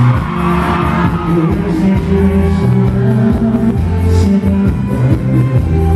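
Live band music through a concert PA, loud and steady, with a steady beat and a male lead singer's amplified voice.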